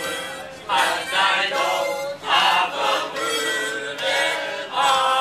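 Harmonica (mouth organ) playing a melody in phrases, with short pauses near the start and about two seconds in.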